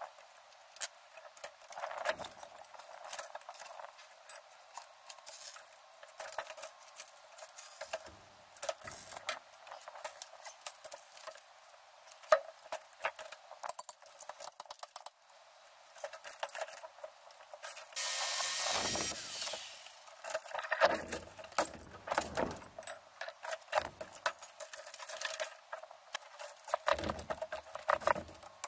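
Knocking, creaking and clattering of an old timber window frame being pried apart and pulled out of a brick wall by hand, with a few dull thuds and one longer rasping scrape past the middle.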